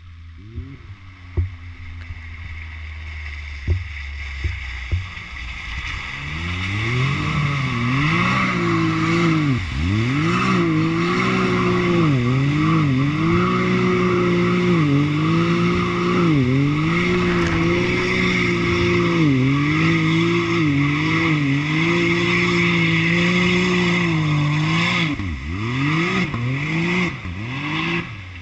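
Can-Am Maverick side-by-side's engine revving hard as it ploughs through a deep water-filled mud hole, the revs rising and dipping over and over, with water and mud splashing. It is faint at first, gets loud about six seconds in, and fades near the end.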